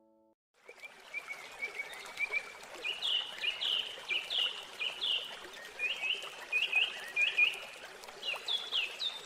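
A small bird chirping in quick series of short high notes over a steady rush of running water.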